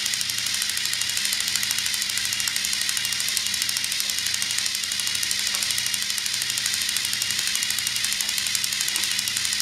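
Electric motors of two motorised Lego toy trains running while the trains are locked together and stalled, straining against each other. A steady whir with a low hum that pulses a little under twice a second.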